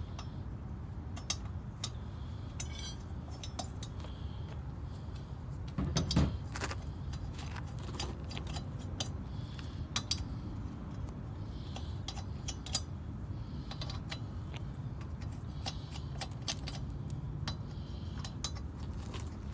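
Lug nuts being threaded by hand onto a steel wheel's studs: scattered light metallic clicks and jingles of the nuts, with one louder knock about six seconds in, over a steady low hum.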